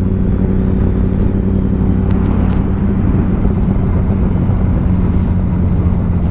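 Kawasaki ZX-10R engine running at a constant speed, a steady drone with no change in revs, under an even rush of wind and road noise. A few faint clicks come about two seconds in.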